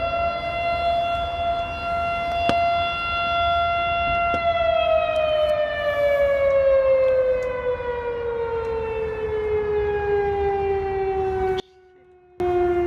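A motor-driven siren wailing on one held pitch for about four seconds, then winding down slowly to a lower pitch. Near the end the sound cuts out for under a second, then returns, still low.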